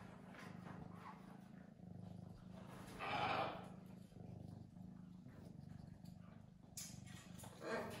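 A cat purring, low and steady, with a louder noisy sound about three seconds in and another near the end.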